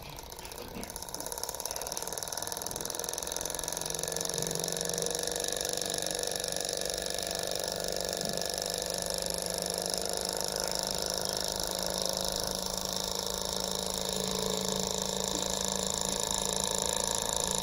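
OKMO J06D miniature vertical Stirling engine running. Over the first four seconds or so it speeds up and gets louder, and then it runs steadily.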